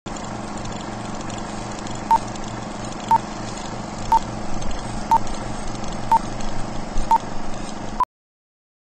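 Film-leader countdown sound effect: a steady projector-like whir with film crackle, and a short high beep once a second, seven beeps starting about two seconds in. It cuts off suddenly right after the last beep.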